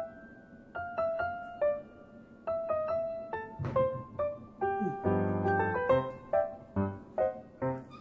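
Background music: a light piano melody of single notes. About five seconds in, bass and chords join it, pulsing a little over twice a second.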